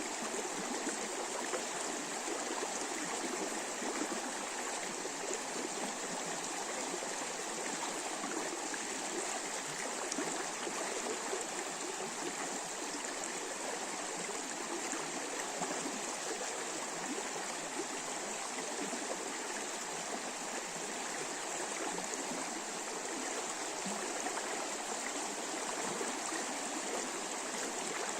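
A river running over shallow riffles: a steady, even rush and babble of flowing water with no breaks.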